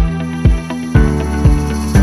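Background music with a steady beat about twice a second, its chords changing about a second in.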